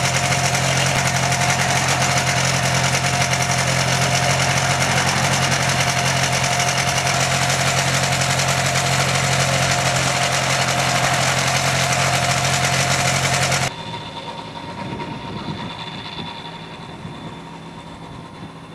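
Gyroplane's pusher engine running steadily, loud and close. About 14 seconds in it drops suddenly to a quieter, more distant engine sound.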